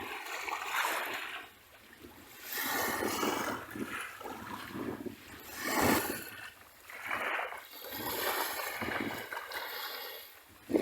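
Sea waves breaking and washing up a beach in repeated rushes of surf, each a second or two long, with the strongest about halfway through.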